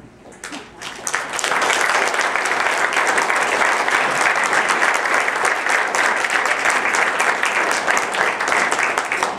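Audience applauding: scattered claps swell into full, steady applause within about a second and a half, then drop away at the end.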